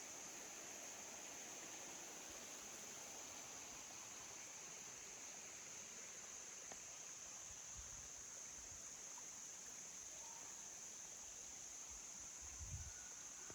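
Faint, steady rush of waterfall water, with a steady high hiss above it and a soft low bump near the end.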